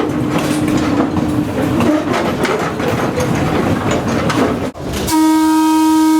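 Electric interurban railcar running on the rails with a steady rumble and clatter; about five seconds in, its horn sounds one long, steady note.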